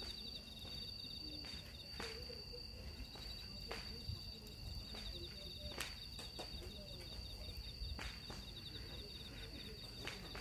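Crickets calling: one steady high-pitched trill with a second, rapidly pulsing trill just below it, with a few sharp clicks.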